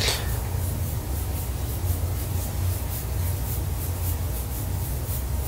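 Skin rubbing on skin: the cupped fingertips of one hand turned round against the palm of the other in a self-massage, a steady brushing with faint regular strokes.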